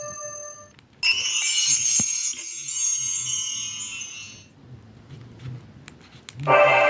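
BlackBerry Curve 8520 ringtones: the previous tune fades out, then about a second in a bright, high chime-like ringtone sounds for about three and a half seconds and dies away, and near the end the next ringtone begins.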